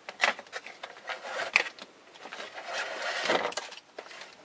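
Thin wire rubbing and scraping as it is pulled through a small drilled hole in a trim piece, with irregular light clicks of handling and a couple of longer scraping swells.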